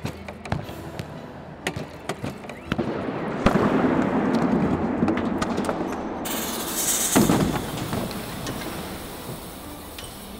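Chain-reaction contraption at work: scattered sharp clicks and knocks, then a loud rushing noise from about three and a half seconds in that slowly dies away. A high hiss joins it near the middle, with a sharp bang about seven seconds in, as a jet of smoke blasts out of the machine.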